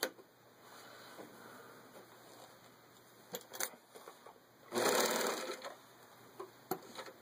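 Vintage Bernina Record 830 sewing machine stitching through layered denim in one short burst of about a second, a little past the middle. A few sharp clicks come before it.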